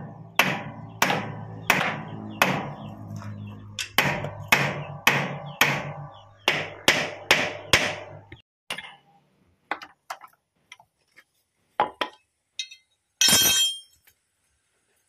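Hammer striking the steel steering arm of a Kubota MU5702 tractor's front axle, about two sharp blows a second for some eight seconds, to knock the worn tie rod end's tapered stud loose. Near the end come a few lighter metal clicks and a brief rattle as the joint is handled.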